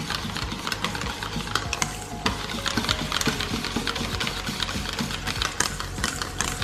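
Rapid, irregular clicking and scraping of a utensil whisking or stirring in a bowl, over a steady low hum.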